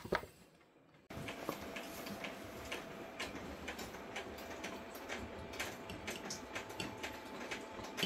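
Cast-iron wood stove burning with a pot of water boiling on top: a steady hiss full of small irregular ticks and crackles, starting about a second in.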